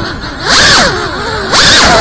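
FPV quadcopter's brushless motors and propellers whining, the pitch sweeping up and down with the throttle. The sound drops away twice, at the start and about a second in, when the throttle is cut, and surges back each time.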